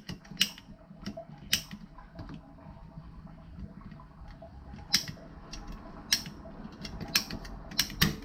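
Irregular sharp clicks and taps of cemented plastic water pipe and fittings being handled and fitted, over a low steady hum.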